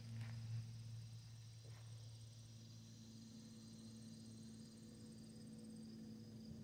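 Faint outdoor ambience of insects buzzing and chirping steadily in high pitches, one of them pulsing rapidly until about six seconds in, over a low steady hum.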